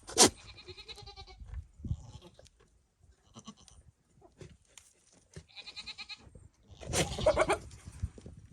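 Nigerian dwarf buck goat making rutting courtship noises at a doe in heat: a sudden loud burst at the start, stuttering pulsed calls, and a longer, louder call about seven seconds in.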